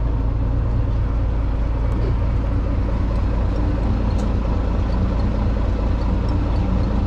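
Steady low rumble of a small fishing boat's engine running while the boat holds on the fishing spot, unchanging throughout.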